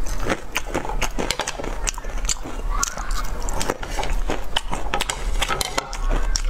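Close-miked chewing with rapid, irregular wet mouth clicks and smacks, the typical sound of eating for a mukbang microphone.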